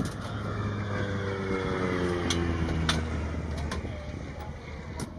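A running engine: a steady low hum, joined over the middle stretch by a pitched tone that slowly falls, with a few sharp clicks.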